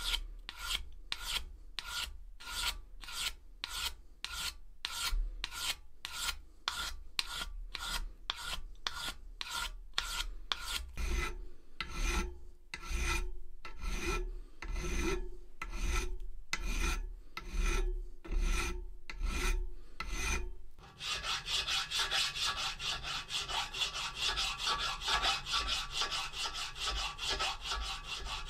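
Hand sanding and then hand filing of a steel J. Dixon #6 pricking iron clamped in a vice, taking off surface rust: even back-and-forth strokes about two a second. About three quarters of the way through, the strokes give way to a faster, continuous rasping.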